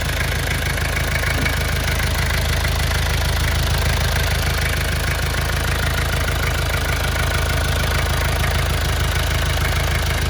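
Mitsubishi Jeep's 4DR5 four-cylinder diesel engine idling steadily.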